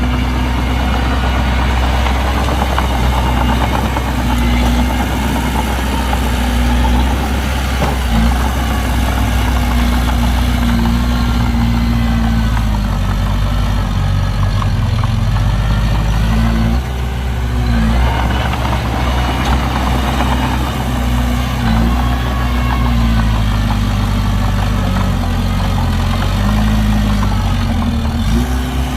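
Heavy diesel engines of a dump truck and bulldozer running steadily, their pitch rising and falling a few times as they rev, around the middle and near the end.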